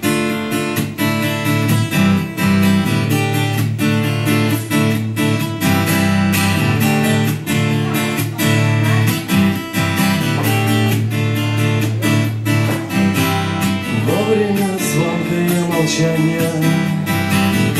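Acoustic guitar strummed in a steady, rhythmic song intro, chord after chord. A singing voice comes in over the guitar near the end.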